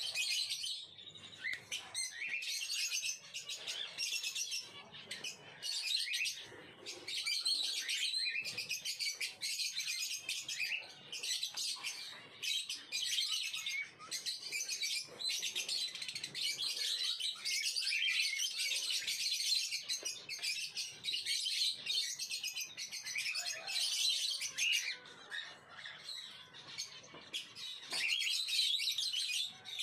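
A flock of small cage birds chirping and twittering continuously, many calls overlapping at once.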